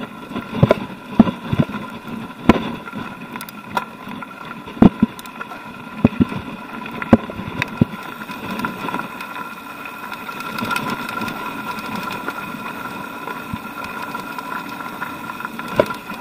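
Mountain bike rolling downhill over rocky singletrack: a steady whirring buzz from the bike under the crunch of tyres on loose stones, with sharp knocks and rattles as it hits rocks, most frequent in the first half.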